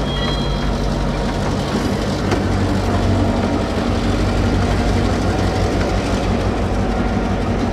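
Former Coaster F40PHM-2C diesel-electric locomotive 2103 running with its train: a steady low diesel engine drone under rolling rail noise. The tail of a horn note cuts off at the very start.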